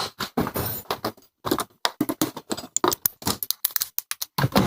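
Irregular metallic clicks and knocks of a socket tool being worked on the 12 mm bolt of a motorcycle's rear brake caliper.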